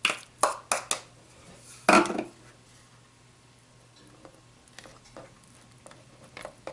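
Avocado flesh and utensils knocking and clacking against a plastic Nutribullet cup as the avocados are put in. A quick run of sharp clicks comes at the start, then one louder knock about two seconds in, then a few faint taps.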